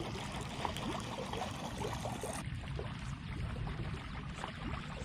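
Lake water lapping and trickling against a boat hull, with many small splashes and drips.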